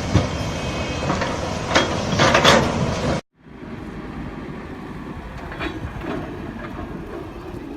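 Heavy machinery running with clanking knocks. It cuts off suddenly about three seconds in, then a quieter steady machine rumble with a few faint knocks follows.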